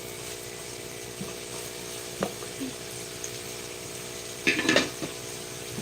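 A utensil stirring and knocking in a pan of ampalaya with egg cooking over a steady low sizzle, with a short louder clatter of utensil against pan about four and a half seconds in.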